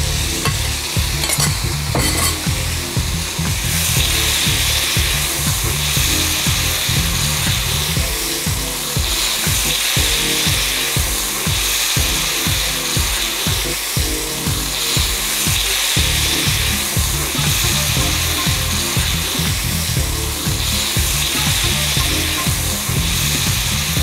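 Ribeye steak, onions and peppers sizzling steadily as they are stir-fried in a hot frying pan on an induction hob, with a low hum underneath.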